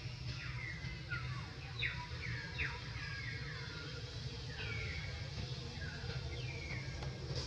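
A bird calling over and over: short notes that slide down in pitch, about two a second, with a brief pause midway. Under it is a steady low rumble.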